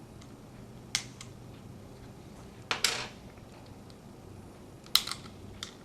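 Small sharp clicks and taps from handling the opened plastic keychain remote and its batteries as the old cells are taken out: one about a second in, a short cluster near the middle, then a sharp click and a lighter one near the end.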